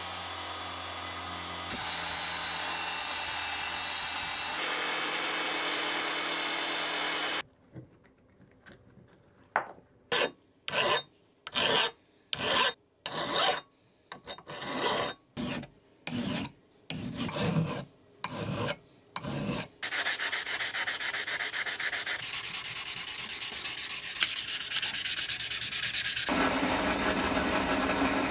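An angle grinder with an abrasive disc grinding rust off a steel axe head, running steadily for about seven seconds. Then a hand file rasps across the axe's edge in a long series of separate strokes, a little under two a second. In the last eight seconds a buffing wheel spun by a drill press runs steadily against the steel.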